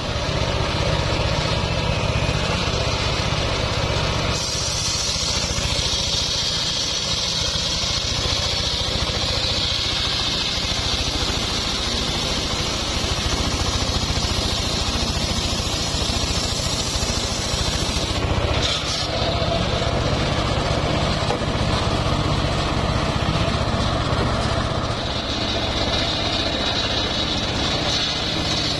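Homemade circular sawmill running, its large blade ripping lengthwise through a rain tree (trembesi) log over a steady engine drone. The high cutting whine grows louder a few seconds in and drops out briefly about two-thirds of the way through.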